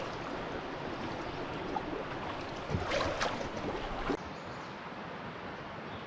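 Fast-flowing river rapids making a steady rush of water, with a few louder bumps about three seconds in. About four seconds in it cuts abruptly to a quieter, steady rushing hiss.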